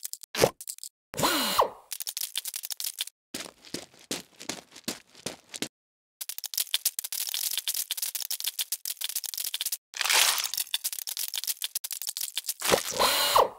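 Sound effects of small plastic toy parts clicking, rattling and scraping, including a run of rapid ratchet-like clicks as the parts are fitted together. The clusters stop and start abruptly, with sliding pitch glides about a second and a half in and near the end.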